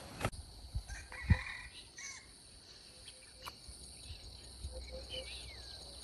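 Steady high insect drone in grass, with a few short chirping calls and a couple of soft thumps from handling the woven basket.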